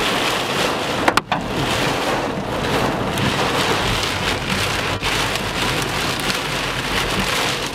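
Heavy rain drumming steadily on the roof and windshield of a moving car, heard from inside, over a low rumble of the car on the wet road. One brief sharp click about a second in.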